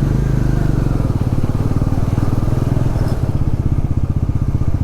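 Motorcycle engine running steadily under the rider, a rapid even putter of firing pulses.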